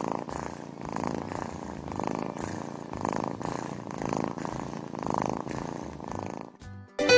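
Kitten purring steadily, swelling and fading about once a second, then stopping shortly before the end.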